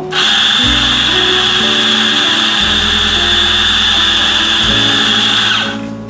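Electric coffee grinder running, grinding the dose for a double espresso: a steady loud grinding with a high whine that starts at once and cuts off shortly before the end.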